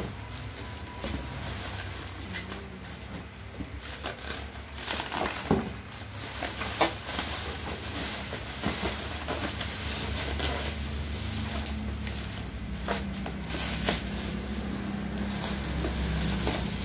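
Plastic air-cushion packaging crinkling and cardboard boxes being handled and opened, in scattered crackles and knocks over a steady low hum.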